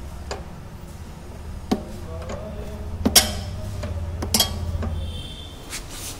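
Metal parts of a car's rear dead axle knocking and clinking against the body mount as the axle is worked into place: a handful of sharp metallic clanks, some ringing briefly, the loudest a double clank about three seconds in, over a steady low hum.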